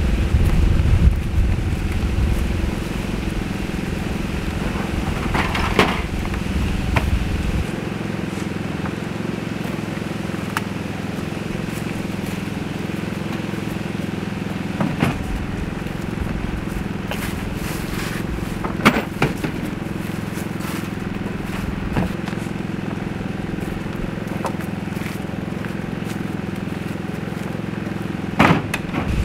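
Steady low hum with scattered sharp knocks and clicks, typical of gear being handled and moved around. A low rumble underneath drops away about eight seconds in.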